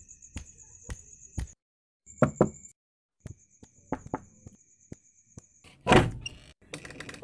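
Two knocks on a wooden door, then about six seconds in a metal barrel bolt is slid back with a loud clunk and rattle as the door is unlatched.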